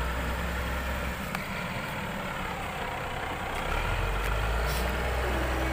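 Heavy diesel engine running steadily at low revs; its deep hum drops back for a couple of seconds and comes up again about two-thirds of the way through.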